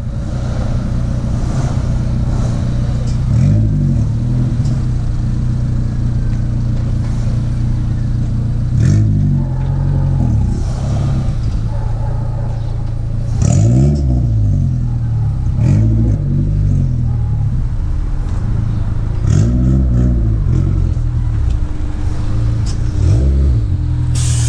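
Car engine idling, with about seven short throttle blips in which the engine speed rises and falls again.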